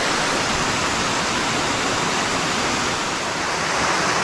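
Waterfall on a forest creek: a steady, even rush of falling water.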